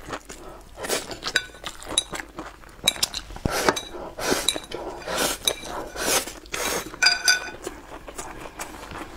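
Chopsticks clicking, clinking and scraping against a porcelain bowl, mixed with close-up mouth sounds of eating. The loudest, ringing clink comes about seven seconds in.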